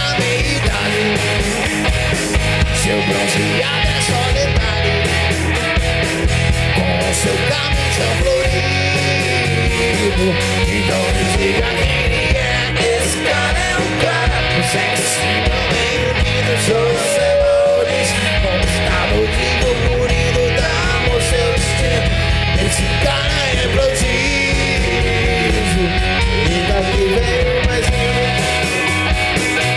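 Hard rock band playing live: electric guitars over bass guitar and drums, steady and loud.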